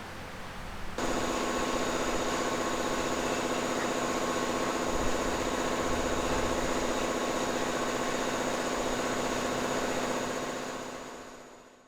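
A workshop machine's motor running steadily with a constant hum and whine. It starts abruptly about a second in and fades out near the end.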